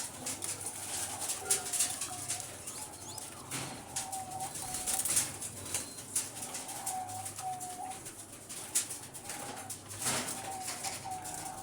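Pied doves cooing, short soft coos repeated again and again, with sharp clicks and bursts of wing flapping among them.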